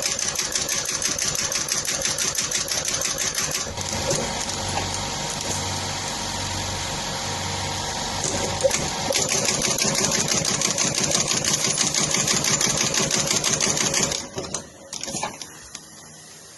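Industrial sewing machine stitching at speed, a fast, even rattle of needle strokes. It runs slower for a few seconds after about four seconds in, speeds up again, and stops about fourteen seconds in, followed by a few short knocks.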